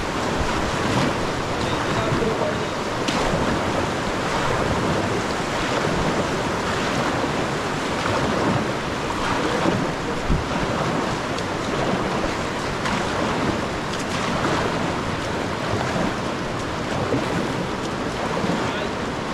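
Steady rushing of river water around a raft on the Güejar River.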